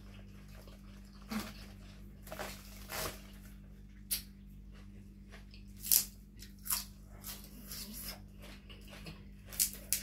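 Crisp raw vegetables crunching and snapping, chewed and torn apart by hand, in a run of short sharp crackles. The loudest come about six seconds in and near the end, over a steady low hum.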